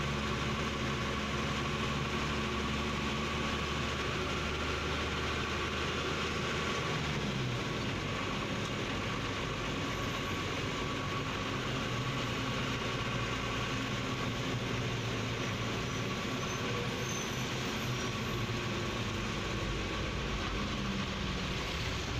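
A truck's diesel engine running at low speed, heard from inside the cab. Its note shifts about seven seconds in.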